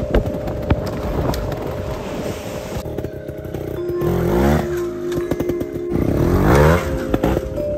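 Trials motorcycle engine blipped hard twice, about four and six seconds in, its pitch sweeping up and back down each time, with knocks and clatter of the bike on rock. Steady held tones of background music run underneath.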